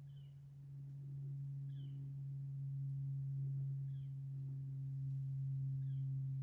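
A steady low hum, with a short, high animal chirp that falls in pitch about every two seconds.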